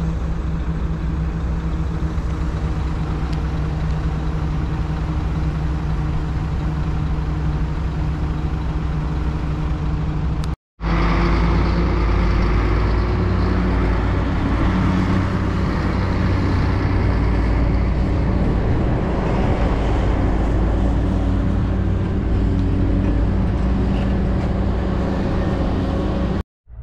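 Heavy diesel engines of a dump truck and a Caterpillar hydraulic excavator running steadily. The sound breaks off for a moment about ten seconds in, then comes back louder and fuller in the low end.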